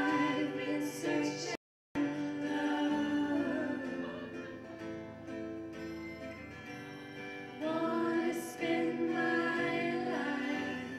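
Women singing a song in harmony, accompanied by acoustic guitar and keytar. About a second and a half in, all sound cuts out completely for a moment.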